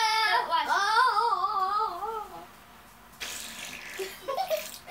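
A child's voice held in long notes into a spinning electric fan, the blades chopping it into a fast warble. It trails off about two and a half seconds in, and a short breathy rush and a few faint vocal bits follow.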